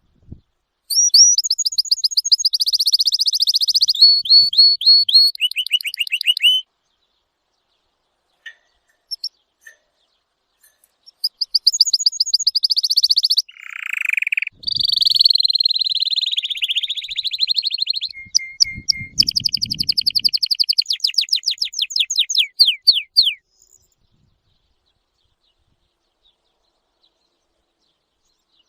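A songbird singing long phrases of rapid trilled notes, in two bouts: one starting about a second in and lasting some six seconds, and a longer one starting about eleven seconds in and lasting some twelve seconds.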